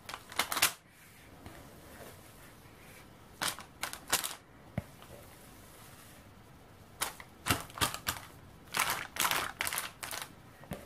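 Baking-paper lining of a loaf tin crinkling and crackling as a lump of heavy seed dough is dropped in and pushed about with a spatula, in several short bursts of crackles with pauses between.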